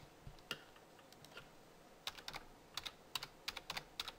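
Computer keyboard keystrokes as a login password is typed: a few scattered key clicks, then quick irregular runs of keystrokes in the second half.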